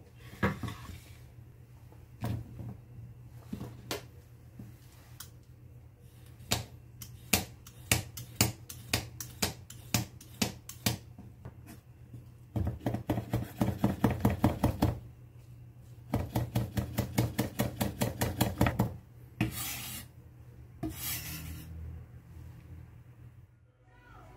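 Knife chopping on a wooden cutting board: scattered single cuts, then two fast runs of even chopping at about six strokes a second, followed by two short scraping noises.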